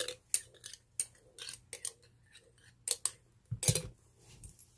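A metal spoon clinking and scraping against the inside of a glass bottle as it stirs lemon dressing, in a run of short, sharp strokes, the loudest about three and a half seconds in.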